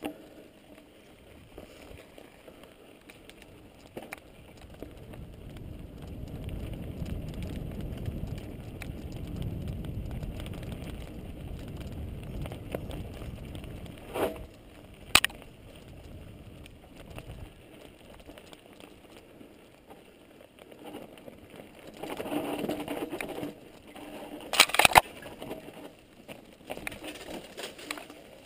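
Mountain bike riding over a grassy dirt trail, heard from a camera on the rider: low wind and tyre rumble swells through the middle, with a couple of sharp knocks and a louder burst of clattering from the bike over bumps near the end.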